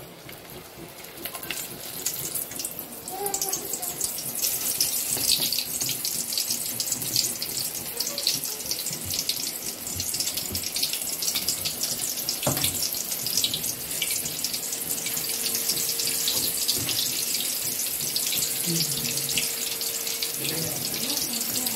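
Masala-coated chicken pieces deep-frying in hot oil in a kadai: a steady crackling sizzle that builds over the first few seconds and then holds.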